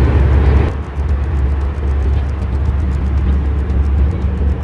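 Jet airliner cabin noise in flight: a steady, loud low rumble of engines and airflow, heard from a seat inside the cabin. Under a second in, the sound becomes duller as the higher hiss drops away while the rumble carries on.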